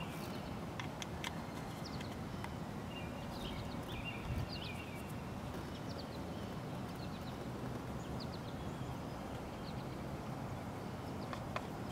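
Scattered light plastic clicks and taps as a distributor cap with its spark plug wires is handled and fitted onto the distributor, over a steady outdoor background hiss. There is a single dull thump about four seconds in.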